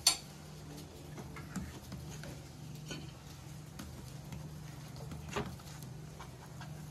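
Kitchen utensils clinking and tapping against pots: a sharp clink at the start, then scattered light taps and ticks, with another clear tap near the end, over a steady low hum.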